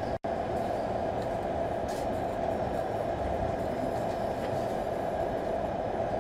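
Steady airflow rush of a Quick 861DW hot air rework station blowing on the circuit board to heat its solder and flux. It drops out for an instant just after the start.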